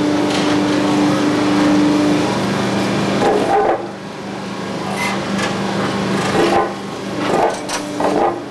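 Machinery of a tie-replacement work train running with a steady mechanical hum, a held tone over the first couple of seconds, then a series of clanks and knocks from about three seconds in.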